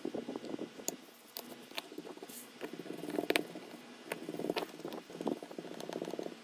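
Rapid scratching and scraping in stretches of about a second each, with sharp light clicks among them.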